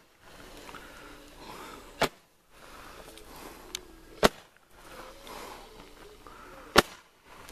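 Roman-candle-type firework shooting balls of fire into the air, each shot a sharp pop: three pops, about two to two and a half seconds apart.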